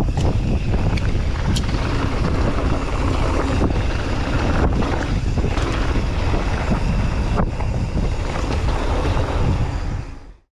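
Wind buffeting the microphone of a mountain biker's POV camera during a descent: a loud, steady low rumble with scattered sharp clicks. It fades out near the end.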